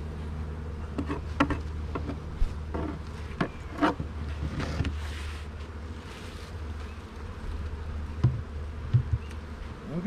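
Honeybees buzzing steadily around an opened hive, with a run of sharp clicks and knocks about a second to five seconds in and two dull thuds near the end as the hive is closed up.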